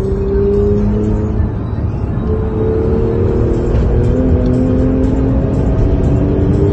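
Porsche 911 Carrera GTS (991.2) twin-turbo flat-six heard from inside the cabin while accelerating hard. The engine note dips briefly at a gear change about a second and a half in, then climbs steadily in pitch over a low road rumble.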